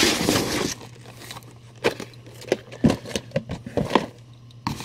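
Packaging rustling and crinkling for a moment, then a handful of light taps and knocks as boxed action figures are handled, over a steady low hum.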